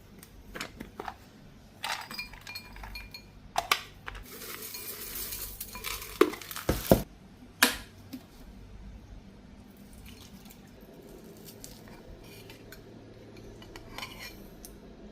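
Dishes and cutlery clinking and clattering while being handled in a kitchen. A stretch of hiss comes about four seconds in, followed by a few sharp knocks, and then the clatter settles to a quiet background.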